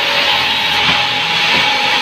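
Power saw running steadily through pine board, a continuous whine over a dense, hissing cutting noise.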